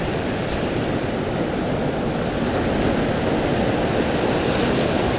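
Ocean surf breaking and washing steadily on a sandy shore, swelling a little louder about three seconds in.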